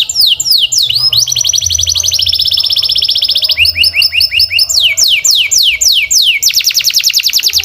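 Domestic canary singing a song of quick repeated phrases: fast falling sweeps, then a rapid buzzy trill, a run of short rising notes, slower falling sweeps, and a very fast trill near the end.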